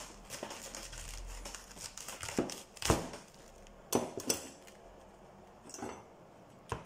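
A knife cutting into a fresh head of cabbage on a plastic chopping board, then leaves being pulled and torn off by hand: crisp crunching and crinkling with several sharp knocks, the loudest about three seconds in.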